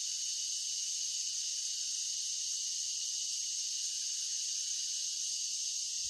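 Crickets chirring in a steady, high-pitched chorus of night insects at dusk.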